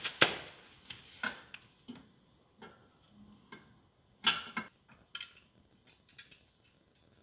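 Chrome aftermarket exhaust pipe with hose-clamped heat shield being handled and fitted onto a motorcycle's exhaust port: scattered metal clicks and knocks, with a cluster of louder, briefly ringing clinks about four seconds in.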